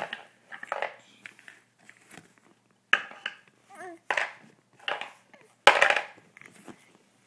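Short bursts of young children's vocal sounds, squeals and babble, mixed with wooden toy blocks clacking as they are picked up. The loudest burst comes about six seconds in.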